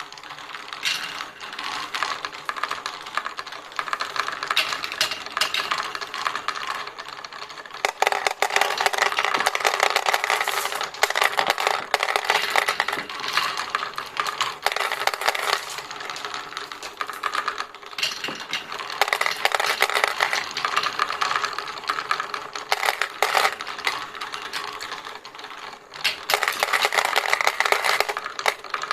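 Many marbles rolling and clattering down a marble run: a dense stream of small clicks and clacks that swells louder and eases off several times.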